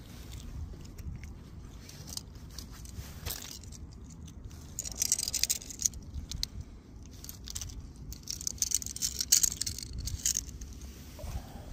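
Rustling, scraping and clicking handling noises of a small caught fish being held up on the line and gripped with plastic fish-grip pliers, busiest in two spells about five and nine seconds in, over a steady low rumble.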